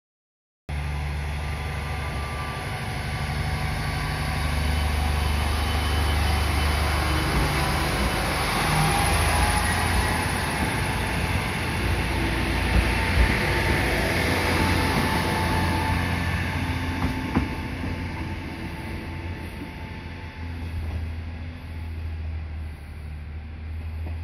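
KiHa 47 diesel railcar engines: one two-car set pulls away from the platform, its engine running louder as it passes close by in the middle and fading as it goes, with a couple of sharp clanks along the way. A steady low diesel hum stays underneath, from the other set standing at the platform.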